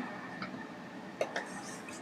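A few light clicks of small parts or tools being handled during bench work: one about half a second in, then two in quick succession a little past the middle.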